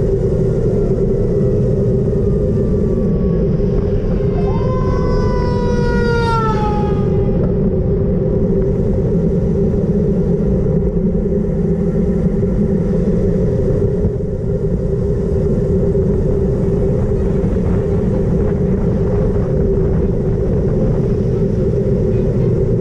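Loud wind rushing over an action camera's microphone on a fast bicycle descent, with a steady hum underneath. About four seconds in, a whine slides down in pitch for a few seconds.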